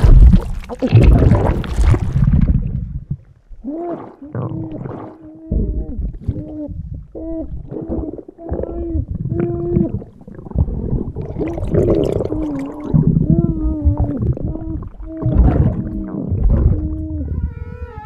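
Sound-effect stomach gurgling and rumbling from a cartoon character's hugely swollen belly, heaviest in the first two or three seconds. Then comes a long series of short, pitched groaning calls over the continuing rumble.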